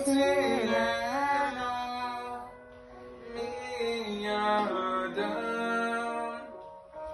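A man singing a slow, drawn-out melody, holding long notes that slide between pitches, with a brief lull about three seconds in.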